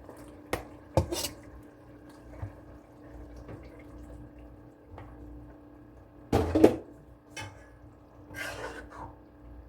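Kitchen pots and utensils knocking and clinking now and then, with a louder clatter about six and a half seconds in and a brief wash of water near the end, over a steady low hum.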